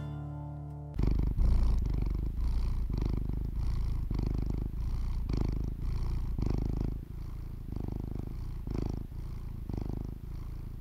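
A domestic cat purring, a low rumble that swells and eases in a regular rhythm with each breath. It starts about a second in, as the last chord of music dies away.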